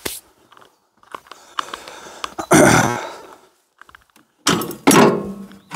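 Metal mini-tractor parts being handled and set down: a click, a loud knock about two and a half seconds in, then two heavy clanks near the end that ring on briefly.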